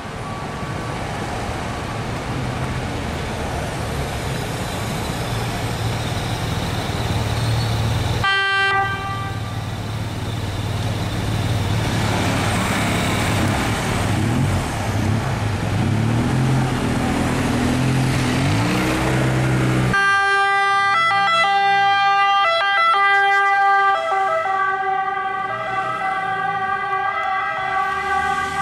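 Emergency vehicles' engines and city traffic, with sirens. In the last third a loud, close ambulance siren dominates with strong steady tones.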